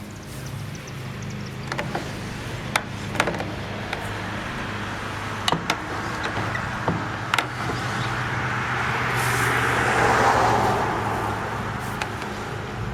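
A road vehicle passing, its noise swelling to the loudest point about ten seconds in and fading, over a steady low hum. A handful of sharp wooden knocks come from grass being packed into a wooden mini baler.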